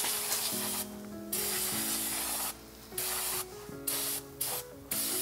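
Aerosol brake cleaner sprayed onto a drum brake assembly in a series of hissing bursts: two longer blasts of about a second each, then several short squirts.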